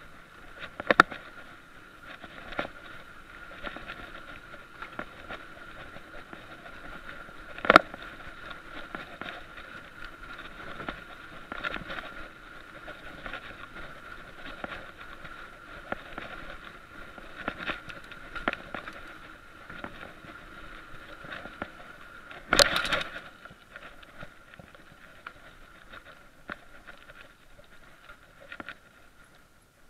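Mountain bike rolling over wooden footbridge planks and then onto a dirt trail, picked up by a chest-mounted action camera: a steady run of small clicks and rattles from the bike and mount, with a faint steady tone underneath. Three much louder knocks stand out, one about a second in, one near the middle of the first third and one about three-quarters of the way through.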